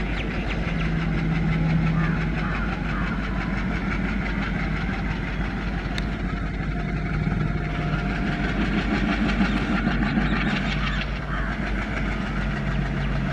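WDM-3D diesel locomotive approaching with its engine running steadily, a low, even drone.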